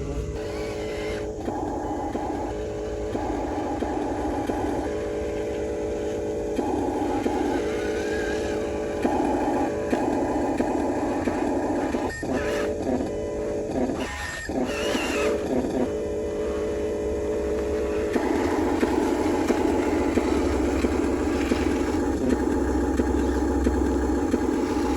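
Small electric gear motors of a Huina remote-control excavator and truck model whining in runs that start and stop as the controls are worked. There are a few clicks in the middle, then a long unbroken run near the end.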